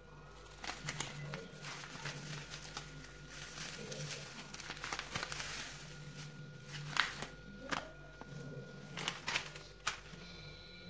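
Plastic sachet of kheer mix crinkling and crackling in the hand as it is handled and emptied into a pot of hot milk, in scattered irregular crackles with a few sharper crinkles in the second half. A low steady hum runs underneath.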